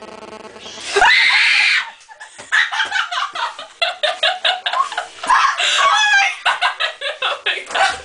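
A sudden loud scream about a second in, lasting under a second: a startled reaction to a jump-scare prank disguised as a hearing test. Two people then laugh hard in quick bursts.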